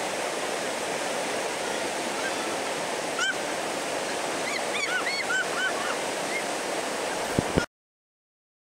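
Whitewater rapid rushing steadily. A few short, high calls rise over it about three seconds in and again around five seconds in. Two sharp knocks come just before the sound cuts off abruptly near the end.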